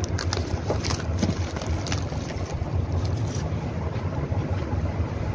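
Clear plastic wrap crinkling and tearing as it is pulled off a coil of PVC-insulated cable, in short crackles over the first three seconds or so, over a steady low rumble.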